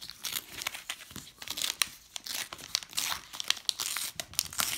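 Foil wrapper of a Flesh and Blood Dynasty booster pack being torn open and crumpled by hand: a dense run of irregular crinkling and crackling.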